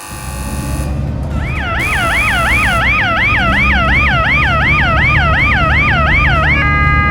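Cartoon emergency-vehicle siren effect: a fast yelping siren, about three quick rise-and-fall sweeps a second, starting about a second in, over a steady low rumble. Near the end the siren stops and gives way to held musical tones.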